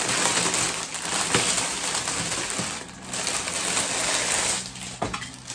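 Packaging of an artificial snow mat crackling and rustling noisily as it is opened and the mat pulled out, easing off near the end.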